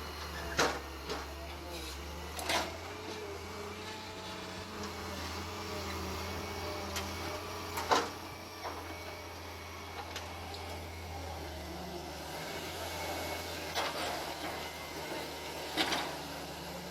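Heavy digging machine's engine running with a steady low hum, broken by a handful of sharp metallic knocks and clanks, the loudest about halfway through.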